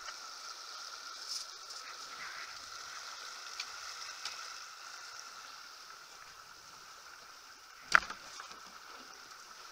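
Steady rush of water along the hull of a Farrier F-31 trimaran under sail, with one sharp knock about eight seconds in.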